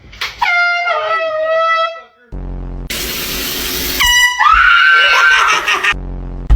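Handheld air horn blasting with startled screams: a high yelp in the first two seconds, then about three seconds in a very loud blast that runs into a shrill rising shriek lasting a couple of seconds.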